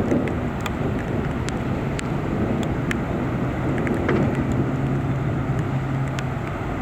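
Torrential rain falling as a steady hiss, with scattered sharp taps of drops. A vehicle engine hums low and steady underneath, most distinct in the second half.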